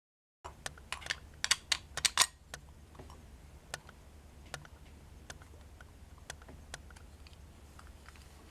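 A series of sharp clicks and light taps, a dense run of them in the first two seconds and then scattered single clicks, over a steady low hum.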